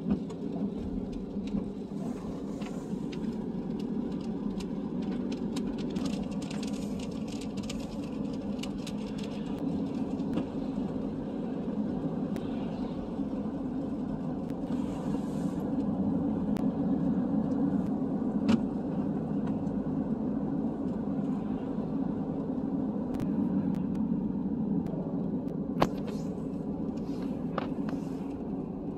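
Steady low rumble of a car's engine and tyres on a wet road, heard from inside the cabin, with stretches of hiss and scattered light clicks, two of them sharper.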